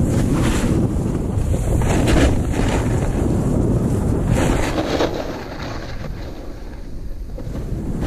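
Wind buffeting the camera microphone as a snowboard rides through powder, with broad swishes of the board hissing through the snow on the turns. It goes quieter for a couple of seconds about five seconds in.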